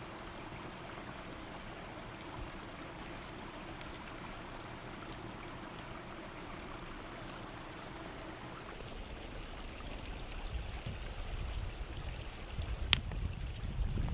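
Creek water running steadily. A low rumble builds over the last few seconds, and a single sharp clink sounds near the end.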